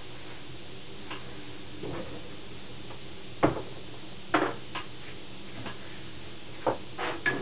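Scattered light clicks and knocks of objects being handled, about seven in all at uneven intervals, the sharpest about three and a half seconds in, over a faint steady hum.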